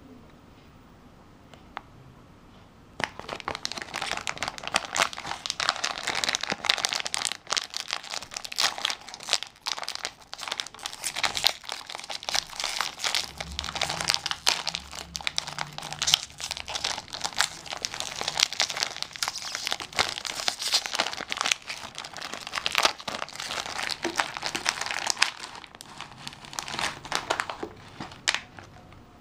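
Plastic snack-cake wrapper crinkling and crackling as hands handle it and open it. The crinkling starts about three seconds in, runs thick with sharp crackles, and dies down near the end.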